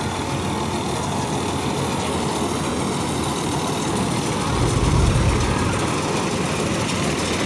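Combine harvester running as it cuts and threshes a standing wheat crop: a steady mechanical drone from its engine and machinery, briefly louder and deeper about two-thirds of the way through.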